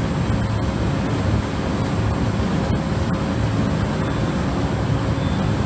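Steady running noise of a potato washer's floating-debris removal with air assist: agitated, aerated water churning in a steel flume over the hum of running machinery, with a faint steady tone.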